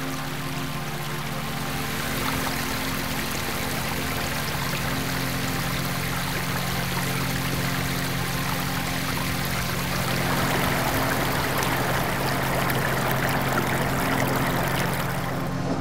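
Water running and splashing like a fountain pouring into a pool, growing louder about ten seconds in and dropping away near the end. Under it are a few steady low held tones.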